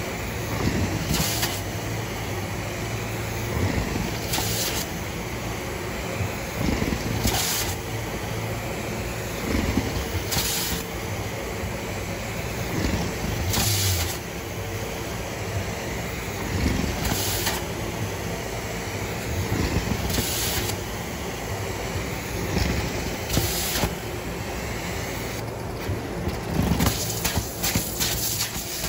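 Carpet extraction wand working across commercial carpet: a steady suction hiss, with a louder rush about every three seconds as each stroke goes by, and a quicker run of rushes near the end.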